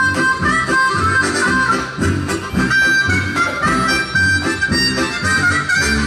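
Diatonic harmonica played through a vocal microphone, a quick run of changing notes over a steady rhythmic pulse underneath.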